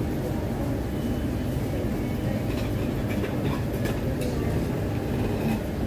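Restaurant background noise: a steady low rumble with a few light clicks scattered through.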